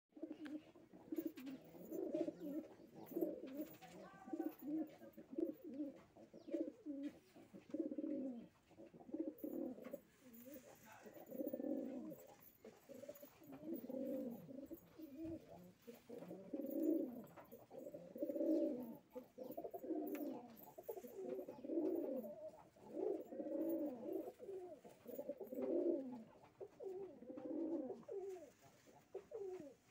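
Domestic highflyer pigeons cooing over and over: low, rolling coos in repeated phrases of a second or so each, with short gaps between.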